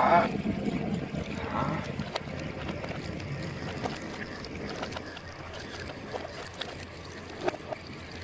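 Water sloshing and gurgling, with scattered small clicks, slowly getting quieter.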